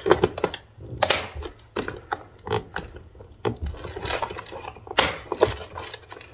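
Stacked clear plastic bead storage box being handled and moved: an irregular run of plastic clicks and knocks, with two louder scraping rustles about a second in and about five seconds in.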